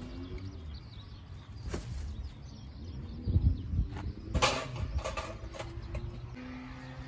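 A few sharp knocks and clatters, the loudest about four and a half seconds in, over faint background music.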